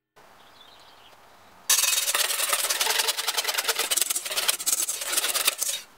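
Wire whisk beating pancake batter fast in a stainless steel bowl: a rapid, continuous scraping rattle of wire against metal that starts a little under two seconds in and stops just before the end.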